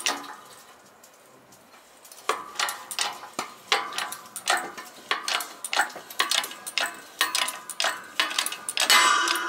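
Shop press forcing a scooter transmission gear onto its shaft: after a short lull, a run of rapid, irregular metallic clicks and ticks, several a second, with a louder ringing clatter near the end.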